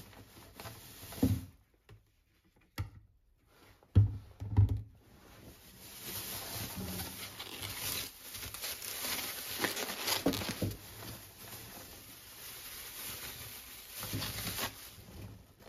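Groceries being unpacked onto a kitchen counter: a few knocks as items are set down, then a long stretch of plastic produce bags rustling and crinkling as they are handled.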